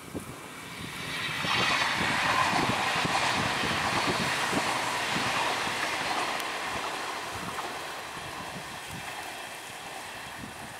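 Renfe Cercanías electric multiple unit running along the line, its wheel and track noise a steady rush that swells about a second in and slowly fades.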